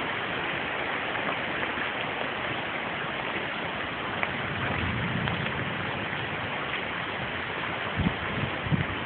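Hailstorm: a steady hiss of hail and rain falling, with scattered sharp ticks of hailstones striking. A few low thumps come near the end.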